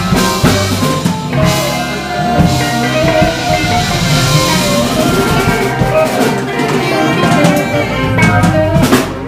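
Live electric blues band playing an instrumental passage: hollow-body electric guitar and tenor saxophone over bass and drum kit, with a couple of loud drum and cymbal hits near the end.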